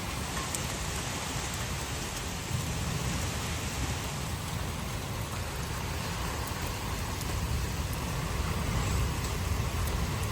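Heavy thunderstorm rain falling steadily, with wind gusts rumbling low on the microphone.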